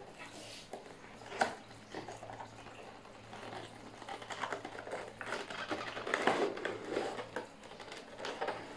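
Packaging of a handheld gimbal being opened and handled: scattered small clicks and rustles of the box and its contents, busiest a little past the middle.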